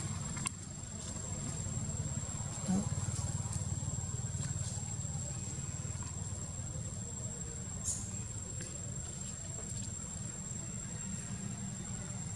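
Outdoor background: a steady low rumble under a continuous thin, high-pitched whine, with a brief knock about three seconds in and a few faint clicks.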